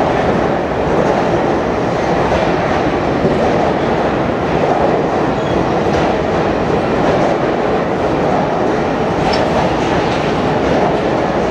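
Ringling Bros. circus train cars rolling steadily past at a platform, with a constant noise of steel wheels on the rails and a few faint clicks. The sound is heard in an enclosed underground station.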